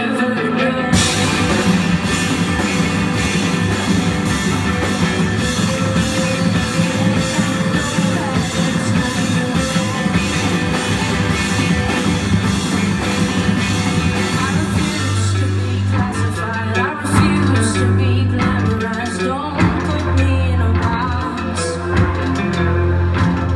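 Live rock band playing: electric guitar, bass guitar, keyboard and drum kit. Steady cymbal strokes ring through the first two thirds; after that the cymbals thin out and the bass notes come more to the fore.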